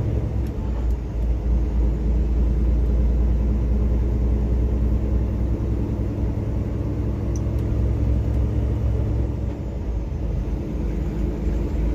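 Semi truck's diesel engine running under an 80,000 lb load, a steady low drone heard inside the cab; it eases off slightly near the end.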